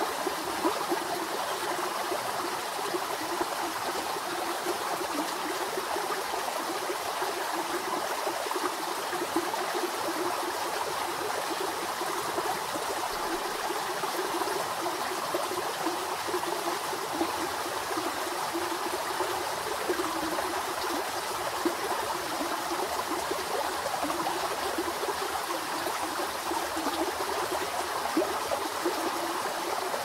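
Mountain stream cascading over rocks in small falls: a steady rush of running water.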